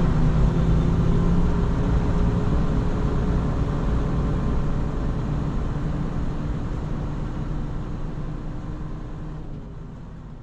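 Semi-truck engine and road noise heard from inside the cab while driving, a steady low hum that fades out gradually.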